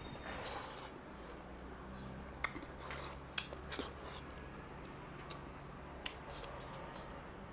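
Close-up chewing of mutton curry and rice, with a few sharp clicks spread through.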